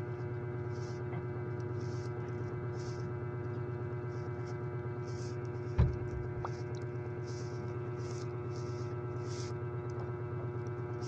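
Steady electrical mains hum with many overtones, picked up in a clip-on lavalier microphone's recording chain. A single sharp low thump comes about six seconds in, and faint soft hissy puffs recur every second or so.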